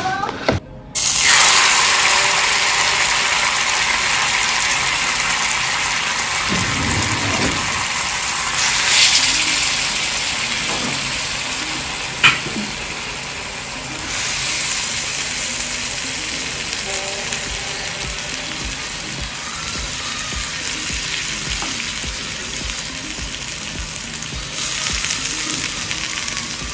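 Steady sizzling of Banga (palm-nut) soup cooking in a pot on a gas stove, starting suddenly about a second in, with one sharp knock about twelve seconds in.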